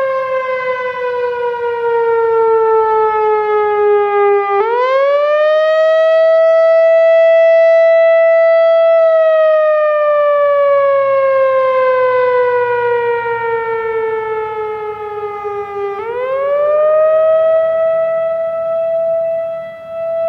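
Whelen WPS-4004 analog electronic outdoor warning siren sounding its attack signal. A loud, piercing tone falls slowly in pitch, then sweeps quickly back up about four and a half seconds in. It holds high for about four seconds, falls slowly again, and sweeps back up near the end.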